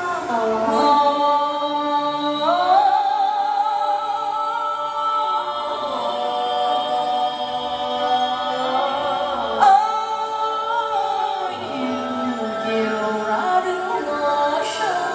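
A woman singing live into a microphone, holding long notes with a wavering vibrato and sliding between pitches.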